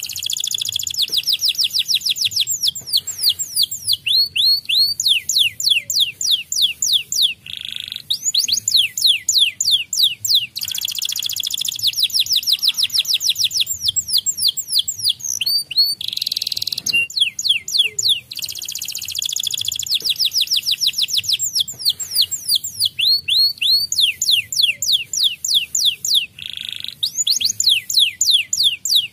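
White domestic canary singing a long, high-pitched song of fast repeated trills, changing to a new trill every second or two with brief breaks between phrases.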